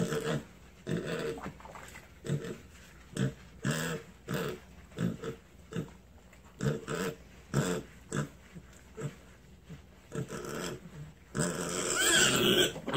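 Mini pig grunting over and over in short grunts, about one or two a second. Near the end a louder, noisier stretch begins.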